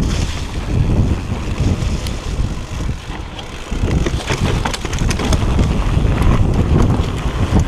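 Wind buffeting the action-camera microphone while a Propain Tyee full-suspension enduro mountain bike is ridden on a trail, with scattered clicks and rattles from the bike and tyres over the ground.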